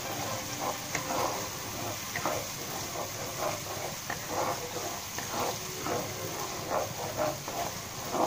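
Wooden spatula stirring and scraping thick chilli sauce around a non-stick pan, in short strokes about twice a second, over the steady sizzle of the sauce cooking in oil.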